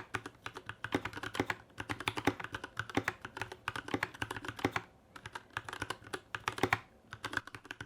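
Typing on a GK64S 60% hot-swap keyboard with unlubed Gateron Yellow Milky Top switches in a plastic case with an aluminium plate. It is a fast, uneven run of keystrokes with brief pauses about five seconds in and near the end. The sound is a little hollow.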